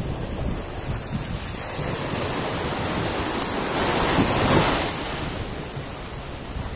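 Small sea waves washing up on a sandy beach, swelling to a louder wash about four seconds in, with wind buffeting the microphone.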